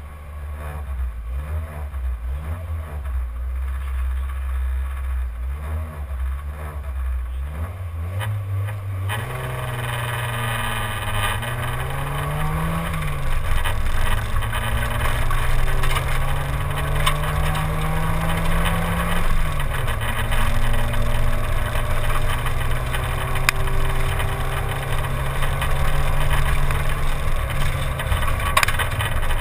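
Simca 1000 rally car's rear-mounted four-cylinder engine running with the car standing still, then pulling away about nine seconds in and accelerating through the gears: the engine pitch climbs and drops at two upshifts, then holds steady as the car runs on.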